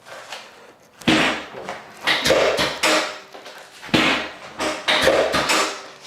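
Several irregular knocks and thuds, each with a short ring as it dies away.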